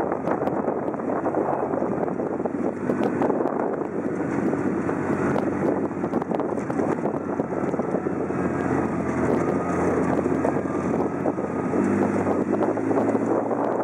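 Off-road vehicle driving a rough dirt road, heard from inside its open cab: a steady engine hum under the rumble and rattle of the vehicle over the ruts, with wind on the microphone.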